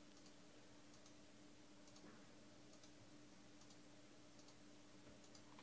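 Near silence: room tone with a faint steady hum and a faint tick repeating a little more often than once a second.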